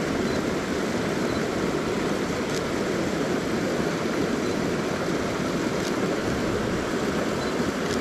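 Steady rush of a rocky creek cascading over boulders below a waterfall.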